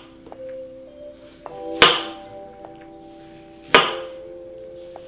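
Kitchen knife slicing through a peeled pear and striking a wooden cutting board: two crisp chops about two seconds apart, over soft background music with held notes.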